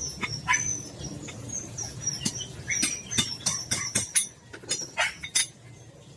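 Sharp metallic clicks and short high squeaks from the steel parts of a car door hinge being handled and worked, about a dozen irregular clinks that thin out near the end.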